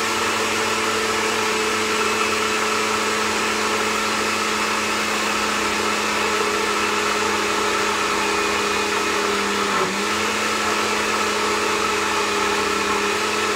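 Blender running steadily as it purées broccoli cheese soup until smooth, a loud, even motor hum over the churning liquid.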